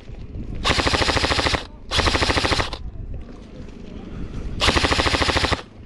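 Airsoft gun firing full-auto in three bursts of about a second each, a rapid even rattle of shots.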